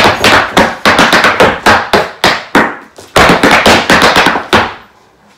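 Irish dance hard shoes drumming a fast treble reel on a hard floor: rapid clicks and strikes of the toe and heel, with a brief lull about two and a half seconds in, then a second flurry that stops near the end.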